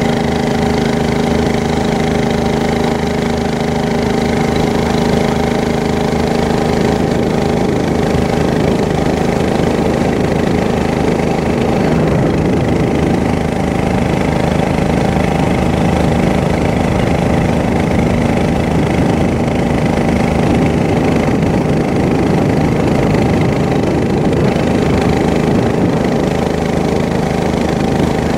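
A boat's engine running steadily at an even pitch, heard from on board.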